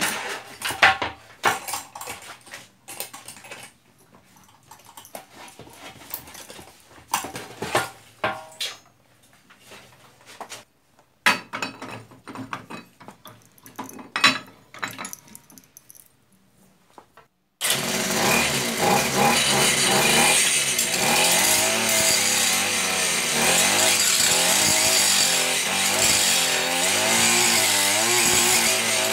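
Scattered metallic clicks and knocks of parts being handled. About two-thirds of the way in, the small two-stroke engine of a brush cutter fitted with a chain saw attachment starts up sharply and runs loud and steady, its pitch wavering a little.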